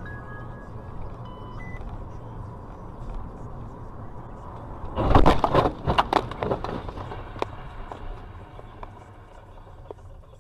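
Steady road and engine rumble heard from inside a car. About five seconds in comes a loud, rough burst lasting over a second as a Nissan GT-R's twin-turbo V6 is driven hard past close alongside, then the sound falls back to the steady rumble.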